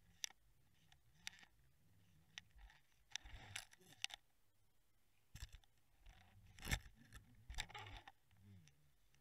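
Faint, irregular clicks and short scraping knocks from an underwater camera housing towed on a fishing line, with the loudest knock about two-thirds of the way through.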